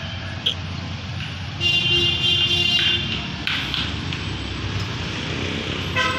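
Vehicle engine and road noise heard from a moving vehicle, a steady low rumble. About one and a half seconds in, a loud high-pitched tone sounds for about a second and a half, and there is a short pitched blip near the end.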